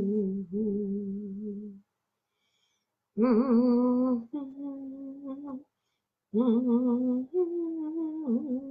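A woman humming a slow chant melody in three long phrases with short pauses between them, her pitch wavering at the start of each phrase.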